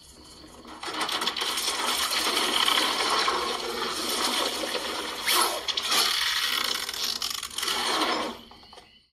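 A dense run of mechanical clicking and rattling played back through a Motorola moto X40 phone's stereo loudspeakers. It swells up about a second in and fades out near the end.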